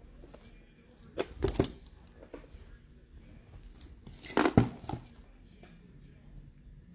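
Trading card packaging being torn open: two short bursts of tearing and crinkling, about a second in and again about four seconds in.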